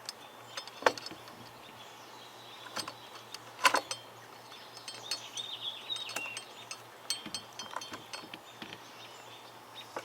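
Scattered light clicks and metallic clinks from handling chainsaw parts and tools, with the sharpest knocks about a second in and just before the four-second mark. A bird chirps briefly around the middle.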